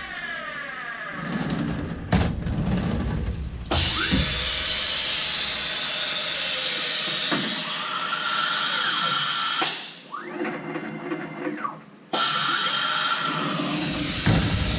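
CNC milling machine contour-milling a block of stock with an end mill. The cutting noise starts and stops abruptly several times as the tool goes into and out of the cut, with a short whining glide in between as the machine moves.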